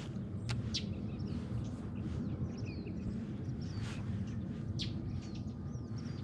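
Small birds chirping: short rising and falling calls scattered throughout, over a steady low rumble. A few sharp clicks come about half a second in and again around four to five seconds in.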